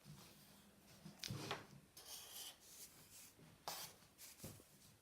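Felt-tip marker drawn across paper: a few short, faint scratchy strokes.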